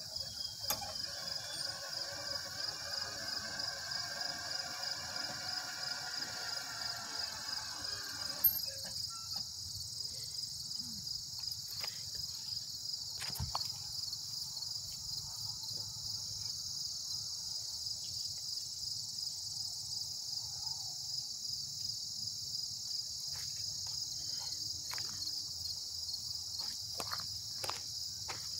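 Crickets and other insects trilling steadily in a high, finely pulsing drone. For the first eight seconds or so a lower sound with several pitches plays over it and stops suddenly with a click. Scattered faint clicks follow.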